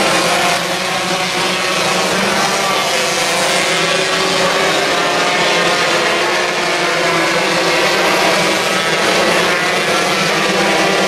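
Pack of 125cc micro sprint cars racing on a dirt oval, several small two-stroke engines running at high revs together in a steady, overlapping drone.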